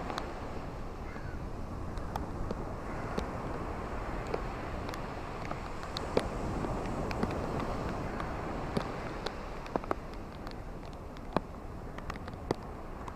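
Ocean waves washing onto a beach: a steady surf wash that swells a little about halfway through, with scattered short, sharp clicks on top of it.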